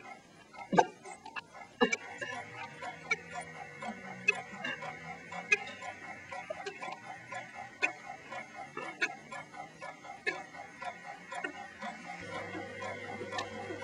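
A series of sharp ticks, a little under two a second and slightly uneven, over a steady high-pitched whine. A low hum joins near the end.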